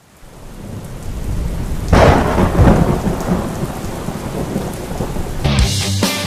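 Thunderstorm sound effect: rain fades in, then a long rumbling thunderclap about two seconds in that slowly dies away. Near the end, heavy electric-guitar rock music kicks in over it.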